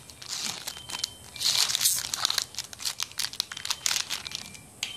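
Foil wrapper of a Pokémon Sun & Moon booster pack crinkling and tearing as it is ripped open and the cards are slid out, a run of sharp crackles and rustles.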